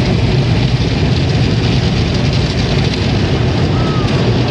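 Automatic car wash heard from inside the car's cabin: a loud, steady roar of the wash machinery working over the car.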